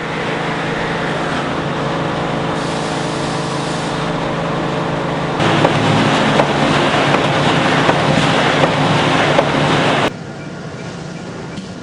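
Steady industrial machinery noise with a constant hum. It turns louder and harsher, with small knocks, about five seconds in, then drops to a quieter steady hum near the end.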